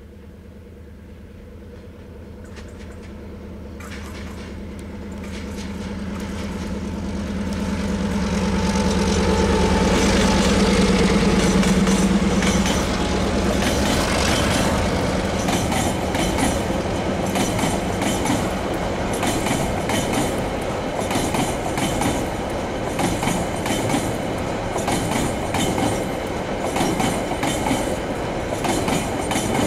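CRRC Qishuyan CDD5A1 diesel locomotive approaching and passing with its engine running, growing steadily louder until it goes by about a third of the way in. Then a long string of loaded container flatcars rolls past, wheels clattering and clicking over the rail joints.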